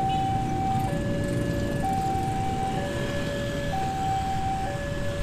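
Railway level-crossing warning alarm sounding its two-tone signal, a higher and a lower tone alternating about once a second, the warning that a train is coming. Motorcycle engines rumble underneath.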